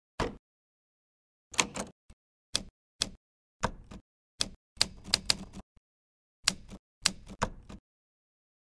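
Simulated manual typewriter key strikes from an iPad typewriter app: about fifteen sharp clacks at an uneven typing pace, some in quick runs, as two words are typed.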